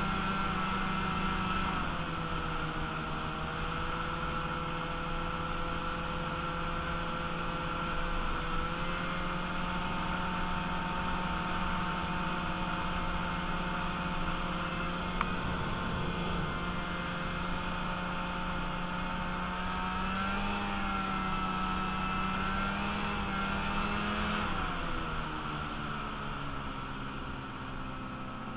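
Freshly rebuilt vehicle engine running steadily under way, its note stepping up and down with the throttle a few times and dropping off near the end.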